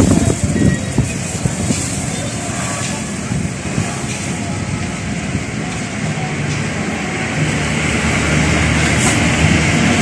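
An engine running steadily, its low hum growing a little stronger from about six seconds in.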